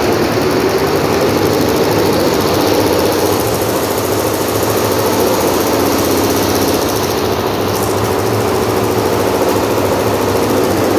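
Multi-head TANG computerized embroidery machine running, its row of stitching heads making a loud, steady mechanical clatter.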